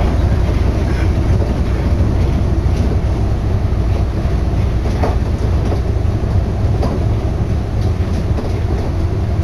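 Tokyo Monorail car running at speed, heard from inside: a steady low rumble from its rubber-tyred bogies on the concrete guideway beam, with a couple of faint knocks midway.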